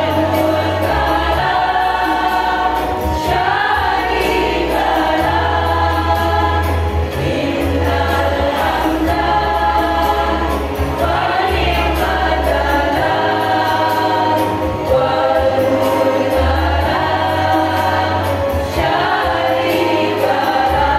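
Women's choir singing long held notes over a low bass accompaniment that changes every few seconds.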